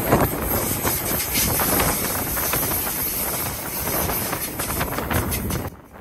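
Oscar H-set electric intercity train rolling past close by as it departs, a loud, steady rush of wheels on rails. It cuts off suddenly near the end.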